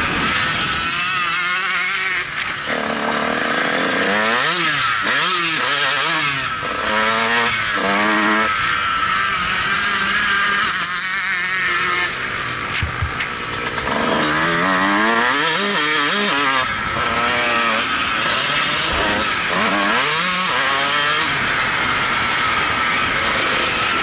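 Motocross bike's engine revving hard and shifting up through the gears, the pitch climbing in repeated sweeps that drop at each shift and climb again, over a steady rushing hiss.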